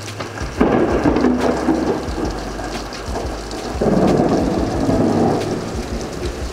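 Thunder rumbling twice over hard rain: one roll starts about half a second in, the second a little past the middle, each lasting about a second and a half.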